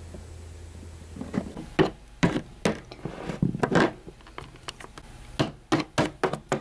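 Plastic toy animal figures tapped against a tabletop as they are walked along by hand: a run of irregular light knocks and clicks, starting about a second and a half in.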